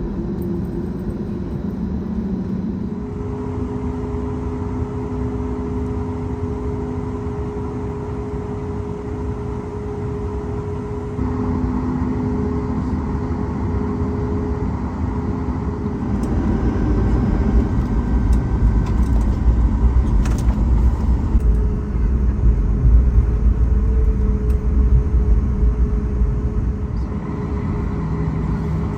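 Cabin noise of a Boeing 737-9 MAX: a steady hum with several level whining tones. About halfway through, a heavy low rumble comes in and the sound grows louder for about ten seconds, then eases.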